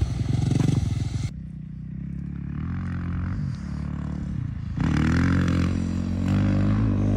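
Dirt bike engines on a motocross track. At first a bike is running loudly close by. About a second in, the sound cuts to a more distant bike whose engine pitch rises and falls as it revs up and shifts, and it grows louder from about five seconds in.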